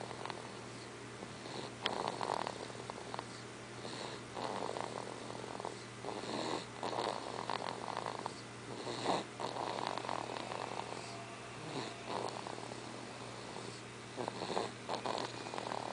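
Snoring: a run of noisy breaths, one every second or two.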